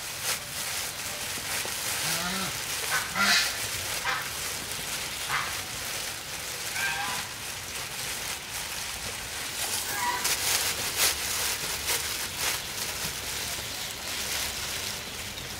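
Farm fowl calling, about half a dozen short calls spaced a few seconds apart, over a steady hiss of rain.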